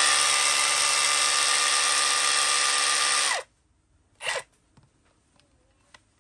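Milwaukee 2715 cordless brushless SDS Plus rotary hammer running in the air with no load, a steady high whine. The trigger is released about three and a half seconds in and the motor spins down. A second later comes one short burst of the trigger, followed by faint clicks.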